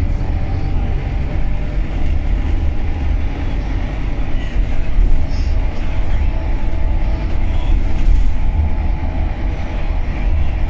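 City bus in motion, heard from inside the cabin: steady engine and road noise, heavy in the low end, with a faint whine above it.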